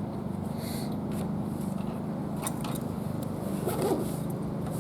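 A steady low hum with a few faint clicks and light handling sounds.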